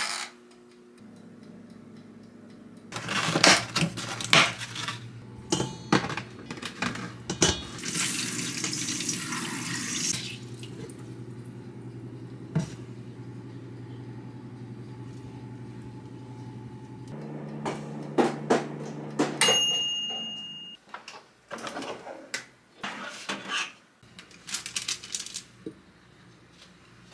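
Kitchen work: dishes and utensils clattering, with a tap running for a couple of seconds about eight seconds in. Near the twenty-second mark one clink rings on and dies away.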